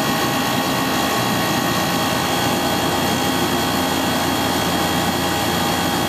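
York heat pump outdoor unit running: the condenser fan and compressor give a steady rushing noise with a few faint steady hum tones. The main contactor is held in through an added 24-volt relay.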